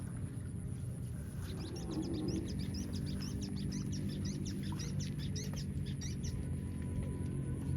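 Small birds chirping in a rapid string of short, high calls lasting about five seconds, over a steady low rumble of outdoor noise.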